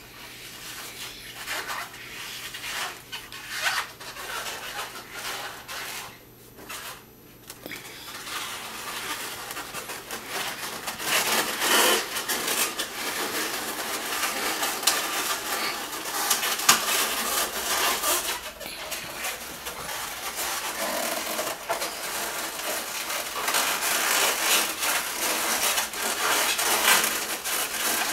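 Latex balloons rubbing against each other and scuffing on a wooden tabletop as a twisted-balloon sculpture is turned by hand: an irregular run of rubs and small clicks that gets louder about eleven seconds in.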